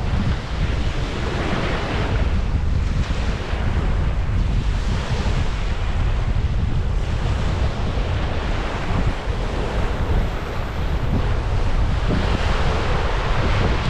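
Strong wind buffeting the microphone with a constant low rumble, over surf washing onto the beach in swells every few seconds.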